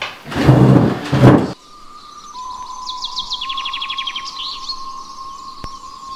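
Two loud bursts of noise, then small birds chirping in woodland, with a fast trill of rapidly repeated notes, over a steady high tone and one sharp click near the end.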